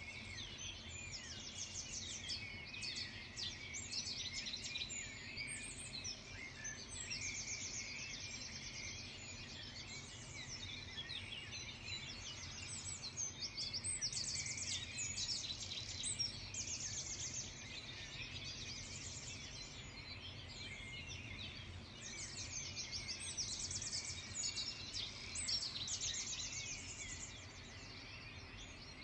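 Dawn chorus: many songbirds singing at once in dense, overlapping chirps and trills, over a faint steady low rumble.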